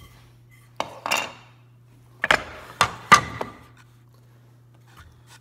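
Wooden knocks and clatter as short pieces of framing lumber are handled and set down. The loudest is a quick run of three or four knocks two to three seconds in, over a faint steady low hum.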